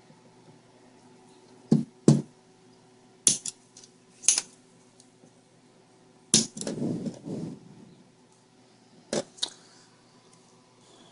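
Spring-loaded solder sucker (desoldering pump) being cocked and fired: a string of sharp clicks, several in close pairs, with a short rattling scrape after one of them.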